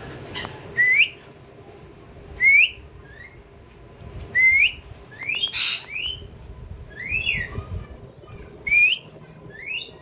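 Indian ringneck parakeets giving a series of short rising whistles, one every second or two, with one louder, harsher call a little past halfway.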